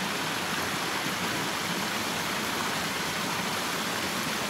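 Small waterfall cascading over rocks into a shallow stream: a steady rush of running water.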